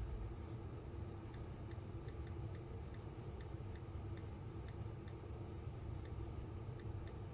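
Faint light ticks, a few a second, somewhat unevenly spaced, over a low steady background hum.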